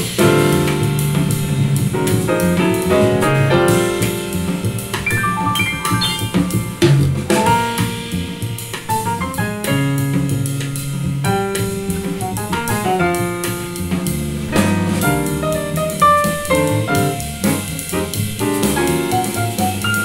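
Jazz with piano and drum kit played back through hi-fi loudspeakers for a speaker sound test.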